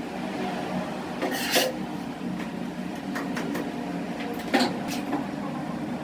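A steady mechanical hum with a few short clatters and knocks on top, the sharpest about a second and a half in and again after four and a half seconds.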